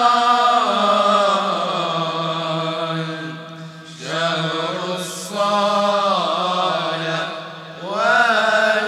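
Arabic devotional chant (nazam, a nasheed in the Réunion tradition): a voice sings long, ornamented phrases over a steady low drone, with short breaks about three and a half seconds in and again near the end.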